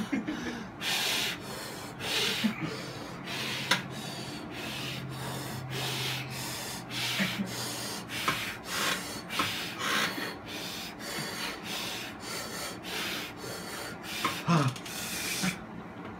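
A person breathing hard in and out through an open mouth, about one rasping breath a second, while holding extremely sour Warheads candy in his mouth.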